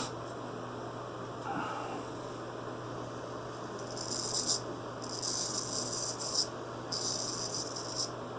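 Straight razor scraping stubble on the neck against the grain: three rasping strokes, starting about four, five and seven seconds in, the later two each lasting over a second.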